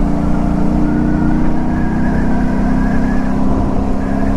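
Aprilia RS 457's parallel-twin engine running at a steady cruising speed, its note holding nearly level, over a continuous low rush of wind.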